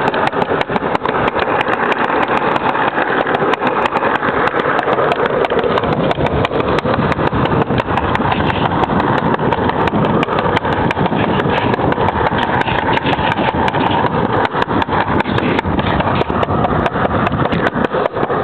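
Street luge wheels rolling fast on an asphalt road: a loud, steady rumble dotted with many small ticks from the road surface.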